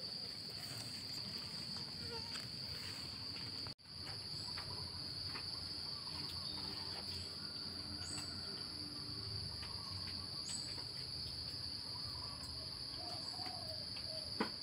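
Steady high-pitched trill of an insect chorus in the undergrowth, continuous apart from a brief break about four seconds in.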